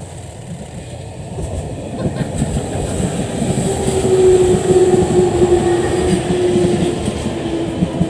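JR East E721 series electric multiple unit passing close by, its wheels clattering on the rails, growing louder until it draws level about four seconds in. From about halfway a steady whine sounds, dropping slightly in pitch as the train goes past.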